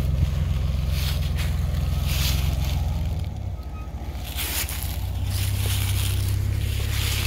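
Ford pickup truck's engine running at low speed as the truck pulls slowly away, a deep steady rumble whose tone shifts about three seconds in.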